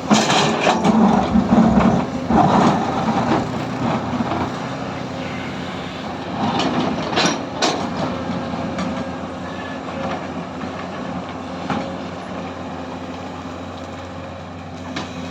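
Komatsu PC210 hydraulic excavator's diesel engine running steadily, with clatter and knocks from the machine working, loudest in the first three seconds and a few sharp knocks later.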